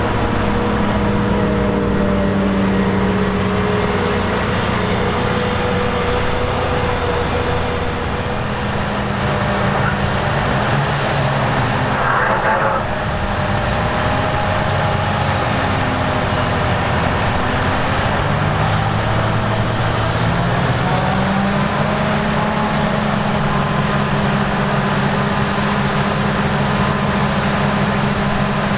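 Diesel engines of Claas harvest machinery, combine harvesters and tractors, running steadily. The engine note shifts a few times, rising about twenty seconds in, and there is a brief rush of noise about twelve seconds in.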